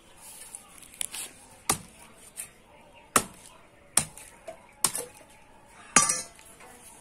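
A curved chopping blade striking a thick, soft plant stalk in a series of sharp chops, about one a second. The loudest chop comes about six seconds in and has a short rattle after it.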